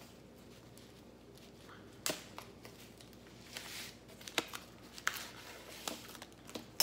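Quiet handling sounds as packaging around a hard plastic comic slab is worked open with a serrated kitchen knife: a few separate light clicks and a short rustle about three and a half seconds in.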